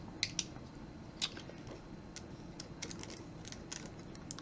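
A cutter knife and handled plastic packaging making scattered light clicks and crackles as a sealed pack is cut open.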